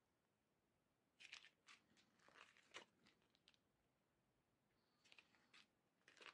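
Near silence with a few faint crinkles of small plastic zip-lock bags of round diamond-painting drills being handled, in a cluster between one and three seconds in and again around five seconds.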